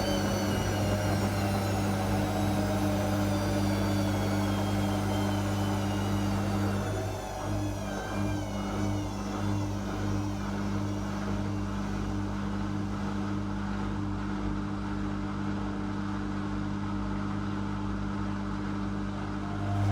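Whirlpool Indiana 1400 washing machine winding down from a spin, its motor whine falling steadily in pitch as the drum slows. About seven seconds in, uneven pulsing sets in as the drum coasts, over a steady low hum.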